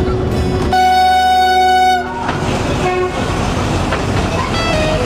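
A narrow-gauge diesel locomotive's horn sounds one loud blast of about a second, over the steady noise of the train running. Two short, fainter tones follow later.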